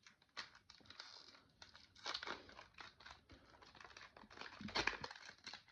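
Faint, irregular crinkling and rustling of trading-card packaging (booster pack foil or plastic) being handled, with a few louder crackles about two seconds in and near the end.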